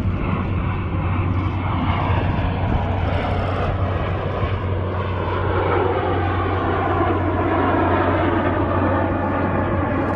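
Canadair CT-114 Tutor jets flying by, their turbojet whine falling in pitch over the first few seconds and then rising again, over a steady low hum.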